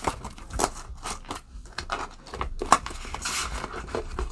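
Crinkling and clicking of polymer banknotes and a clear plastic binder pouch being handled, with irregular sharp crackles and a short rustle a little past the middle.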